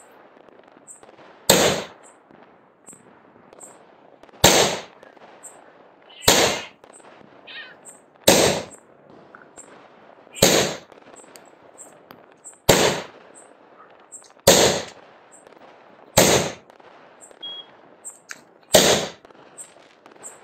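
Multi-shot firework tube firing aerial shots: nine sharp bangs, one about every two seconds, each dying away quickly, with a low hiss between them.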